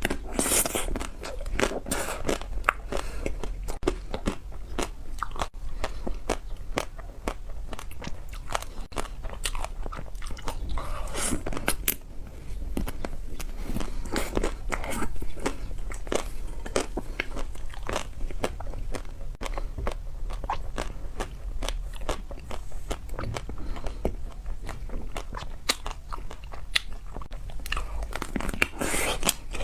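Close-miked biting and chewing of a chocolate-coated ice cream bar: the hard chocolate shell cracks and crunches in many sharp snaps, with chewing between the bites.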